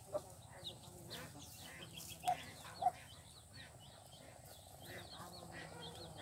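Birds chirping in short, repeated high calls throughout, with two short, louder calls a little over two and just under three seconds in.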